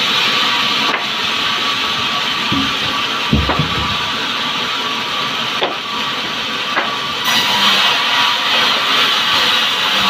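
Sawmill band saw running steadily with a loud hiss. Heavy log thumps against the saw table about two and a half and three and a half seconds in. The saw noise grows brighter and louder about seven seconds in.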